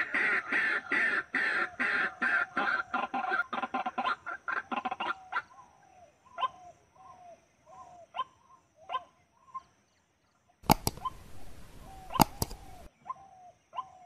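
White-breasted waterhen calling: a fast, dense run of repeated croaking notes for about the first five seconds, then settling into single short falling notes about every half second. A two-second burst of hiss with a few sharp knocks cuts in about two-thirds through.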